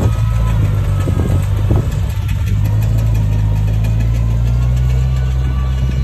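Komatsu bulldozer's diesel engine running steadily with a deep hum, with a few short knocks in the first couple of seconds.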